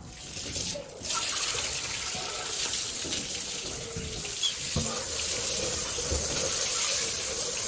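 Garden hose spraying water onto a motorcycle, a steady hiss of water jetting from the hose end and splashing off the bike as the kerosene-loosened dirt is rinsed away. The spray starts about a second in.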